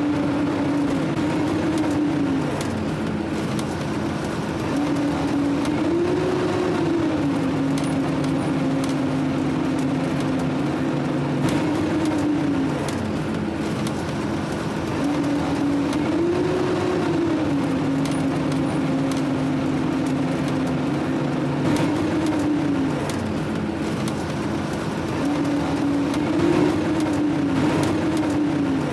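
A fire truck's diesel engine heard from inside the cab while driving. Its pitch rises and falls several times as the truck speeds up and eases off, over a steady road rumble with a few light rattles.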